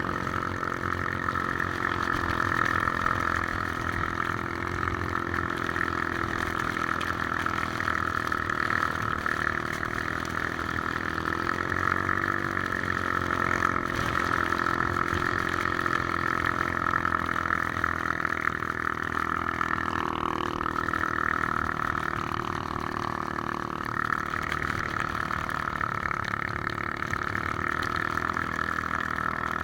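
Three-wheeler ATV engine running steadily under way, its pitch shifting a little now and then, with a steady rushing noise of wind over it.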